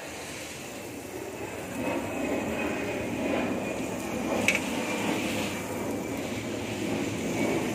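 Water spraying from a garden hose's brass nozzle and splashing onto potted plants and paving: a steady rushing noise that grows louder about two seconds in, with one short sharp click near the middle.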